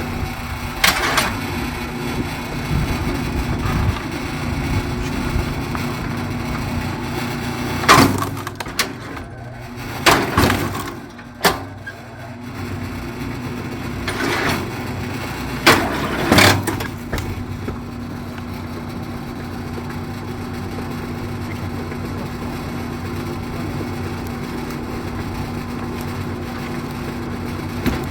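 Engine of a hydraulic log splitter running steadily, with logs cracking and splitting apart about six times, most of them bunched in the middle.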